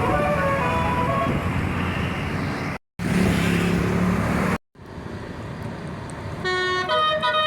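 Bus telolet horn: a multi-tone musical air horn playing short stepped melodies over engine and traffic noise. The sound cuts out abruptly twice, about three and four and a half seconds in. The horn tune comes back loud about six and a half seconds in, stepping down in pitch.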